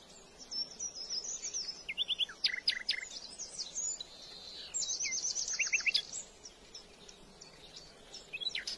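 Small birds singing: a scatter of quick high chirps and short downward-sweeping whistled notes, with a rapid run of repeated notes about five seconds in.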